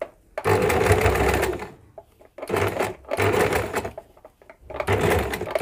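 Domestic electric sewing machine stitching in short runs: four bursts of about half a second to a second and a half each, with brief pauses between them as small folded frills are stitched down one by one.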